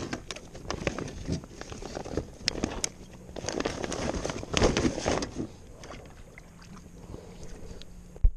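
A bag rustling and crinkling as a freshly caught peacock bass is stuffed into it, with small scrapes and knocks against the kayak. It quietens after about five seconds, and a single sharp click comes right at the end.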